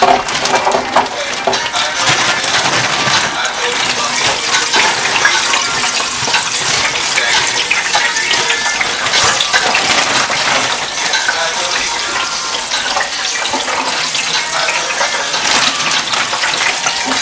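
Chicken wings crackling and sizzling in hot oil in an electric countertop deep fryer: a dense, steady crackle.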